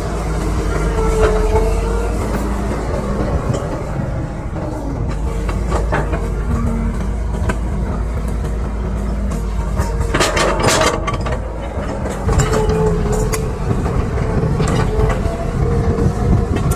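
Excavator's diesel engine running steadily with a tone that comes and goes, and a cluster of sharp metal clanks and scrapes about ten seconds in.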